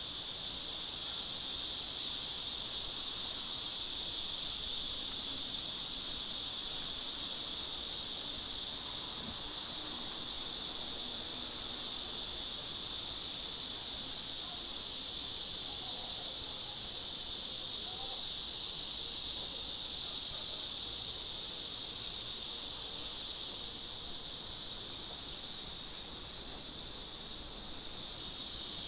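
A chorus of cicadas, a continuous high buzzing drone that holds steady without pause.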